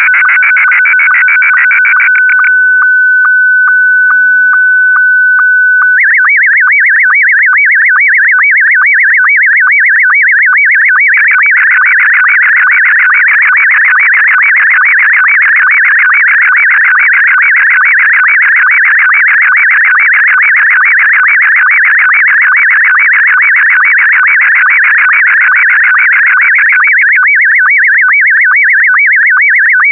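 Slow-scan television signal in Scottie 1 mode: a continuous, loud stream of warbling, whistling tones carrying the picture line by line, with a short sync tick a little over twice a second. A few seconds in, the warble drops to a single steady tone for about three seconds before the warbling picks up again.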